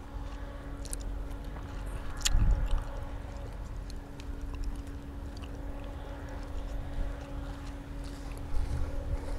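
Harbour ambience: a steady low hum with an uneven low rumble of wind on the microphone. There is a sharp knock about two seconds in and a few fainter clicks.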